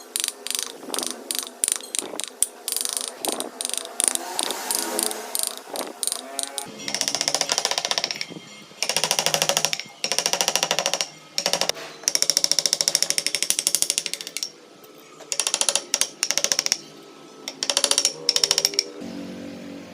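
Wood carving chisel cutting wood in repeated strokes: each stroke is a chattering, scraping rasp about a second long, with short pauses between strokes.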